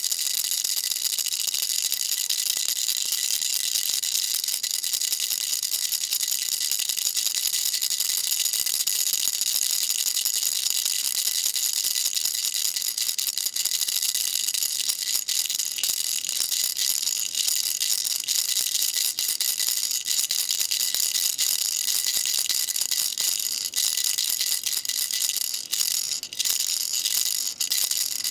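Baby rattle shaken without pause: a dense, fast, high-pitched rattling, with a few brief dips near the end.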